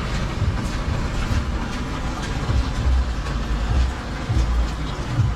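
Steady rain falling, with an uneven low rumble underneath.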